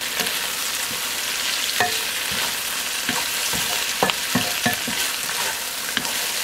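Taro cakes with pork and vegetables sizzling steadily in a nonstick wok, stir-fried with a wooden spatula that knocks and scrapes against the pan at irregular moments.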